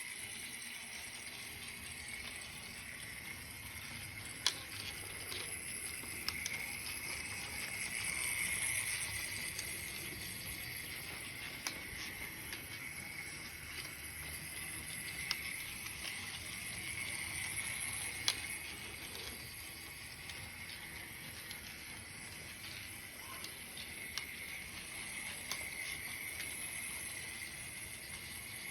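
Faller model truck and bus, their small electric motors whirring at a high pitch as they drive around the track. The whir swells and fades as the vehicles come near and move away, and there are a few sharp clicks.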